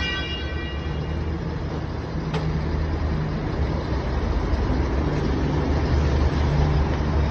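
1982 Shizuoka VHR-A vertical milling machine running on test: a steady low mechanical hum with a single sharp click about two seconds in.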